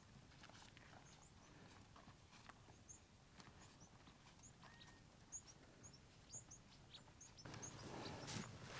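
Faint footsteps crunching through sand, with small high chirps scattered throughout; the steps grow louder near the end.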